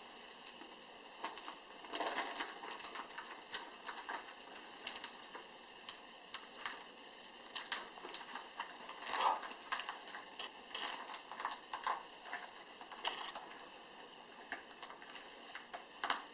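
Gift packaging being opened: paper and plastic crinkling and rustling in irregular bursts with many small clicks, loudest about nine seconds in.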